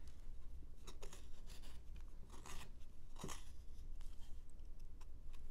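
Rough-out carving knife with a clip-point blade slicing chips off a block of wood: several separate short, scratchy cuts, one stroke at a time. The blade is cutting well.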